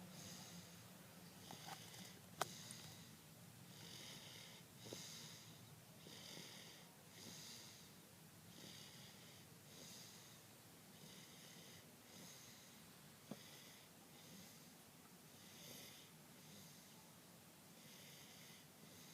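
A baby snoring softly, each breath a faint, high whistling wheeze, about one breath a second. A sharp click sounds once early on and again, softer, past the middle.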